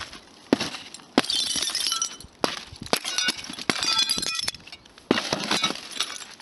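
A sheet of glass being kicked and shattering: a series of sharp crashes, about six in all, each followed by glass shards tinkling and ringing.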